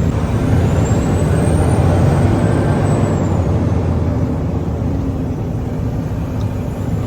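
Loaded semi-truck's diesel engine running steadily on the road, with road noise. A thin high whine rises and then falls in the first few seconds.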